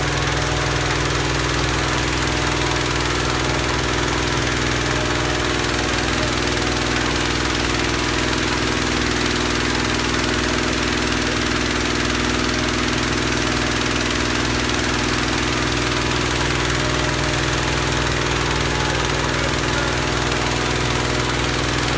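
Small petrol engine running steadily at an even speed.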